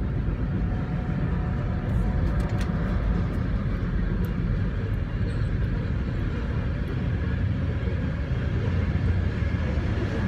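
CN coal train's freight cars rolling across a grade crossing, a steady low rumble heard from inside a stopped car, with a few sharp clicks about two seconds in.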